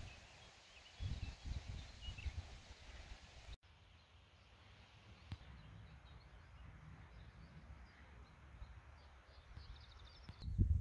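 Mountain meadow ambience: wind gusting on the microphone, with small birds chirping faintly. About a third of the way in the wind stops suddenly, leaving a soft hiss with scattered high bird calls and a short rapid trill near the end.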